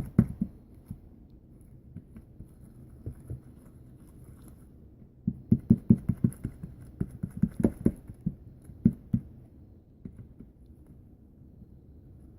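Spatula tapping and scraping against a bowl as slime is worked off it: scattered soft knocks, with a quick run of them between about five and nine seconds in.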